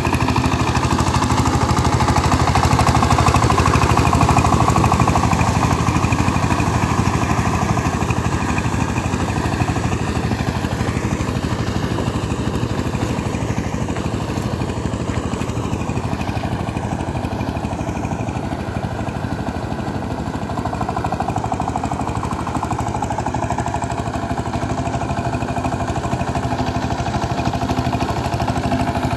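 Two-wheel power tiller's single-cylinder diesel engine running steadily under load as it churns through a flooded paddy field, on a test run after repair. It is loudest a few seconds in, fades as the tiller moves off, and grows louder again near the end as it comes back.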